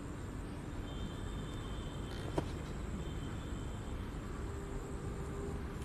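Steady low rumble and hiss of background noise, with one sharp click a little under halfway through.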